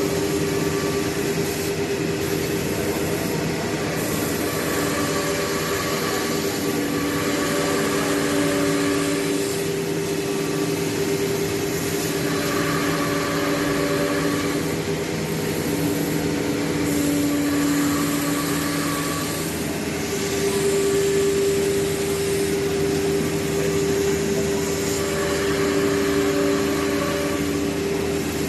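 CNC nesting router running: a steady machine hum and whine from the spindle and vacuum system, with extra tones cutting in and out every several seconds as the machine works.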